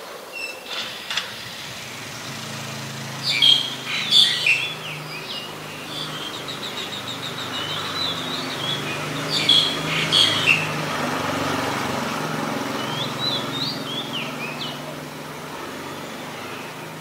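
Black-collared starling calling: clusters of loud harsh notes, a fast rattling series in between, and short slurred whistles later on. A low steady hum runs underneath.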